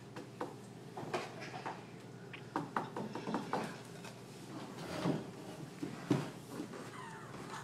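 Scattered light clicks and knocks of small objects being handled, with a quick run of them about three seconds in.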